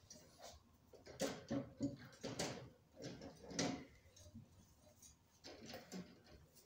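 Faint, irregular clicks and light rattles of a wire-and-plastic birdcage being handled as its small front door is opened.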